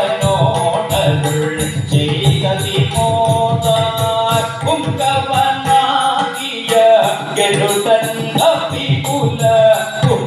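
Ottan Thullal music: a singer's voice over small hand cymbals struck in a steady quick beat, about four clashes a second, with a drum beneath.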